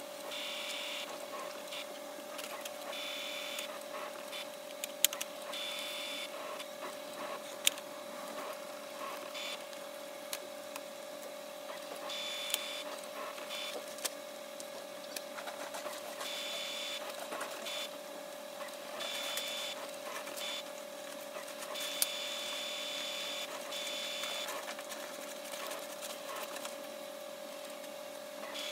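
Brother DCP-T710W ink tank printer running its initial cleaning cycle after its ink tanks were filled: a steady hum, with mechanism whirring that starts and stops every second or two, and a few sharp clicks.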